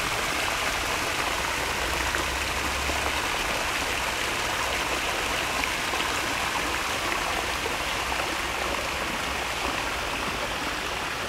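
Water of a small brook running in a steady rush.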